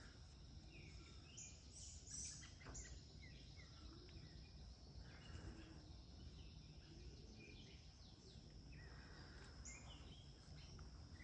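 Near silence: faint outdoor ambience with a steady high hiss and scattered short, faint bird chirps.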